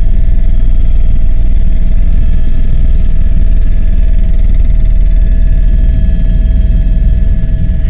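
Helicopter in flight heard from inside the cabin: a loud, steady low rumble of rotor and engine with a constant high turbine whine on top.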